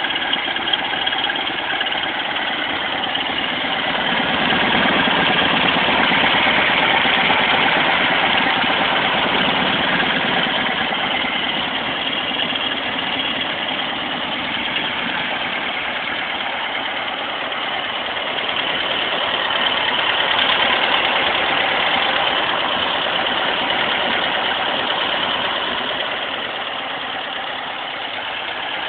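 Rebuilt 1776 cc air-cooled VW flat-four with dual Kadron carburettors and a Monza-style muffler, idling steadily and swelling a little louder twice for a few seconds.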